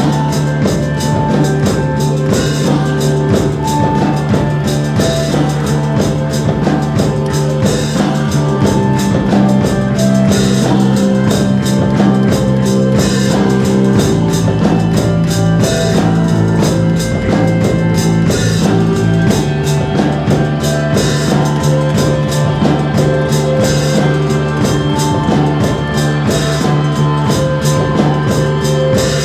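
Rock band playing an instrumental passage with drum kit and held low bass notes that change every few seconds.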